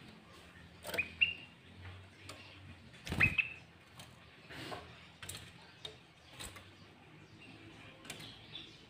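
Sooty-headed bulbul (kutilang) giving short, sharp, rising call notes: a loud pair about a second in, another loud burst around three seconds, and fainter scattered notes between.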